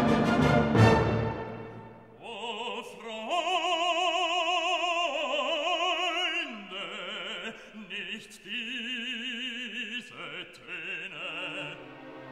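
Classical music: an orchestral chord fades in the first two seconds, then an operatic voice holds long notes with wide vibrato.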